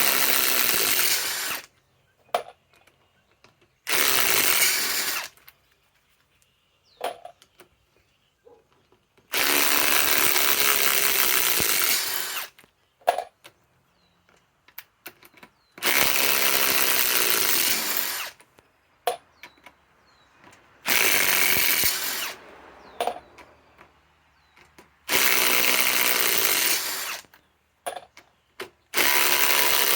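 Ryobi PSBIW25 cordless compact impact wrench hammering on large lag screws in wood, likely backing them out. It runs in seven bursts of one to three seconds each, spaced a few seconds apart, with light clicks of handling between them.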